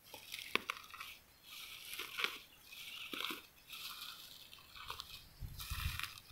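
Dry rice stubble and straw rustling and crackling in a series of short bursts, with a few sharp snaps, as hands work through it. A low rumble comes in near the end.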